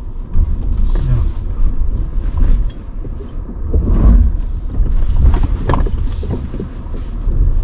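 Electric Tata Punch EV crawling over a heavy rock bed of loose stone blocks: a low rumble with a few knocks and creaks from the tyres and suspension working over the stones.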